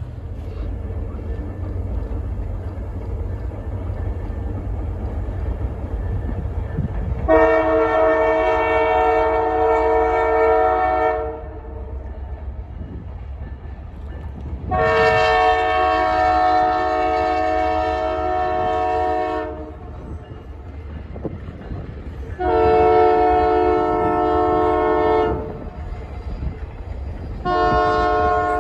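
Canadian Pacific locomotive air horn sounding a chord, with two long blasts, a shorter one, then a fourth starting near the end: the grade-crossing signal pattern. A steady low rumble of the passing train runs underneath.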